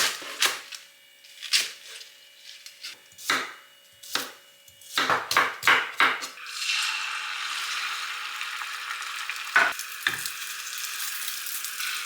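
Clatter and knocks of kitchen utensils and dishes, then, about halfway through, food starts sizzling steadily in a frying pan, with a couple of knocks of a utensil on the pan.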